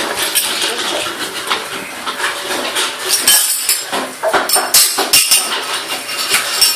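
Dishes and utensils clattering: a dense run of quick, irregular clinks and knocks, busiest in the second half.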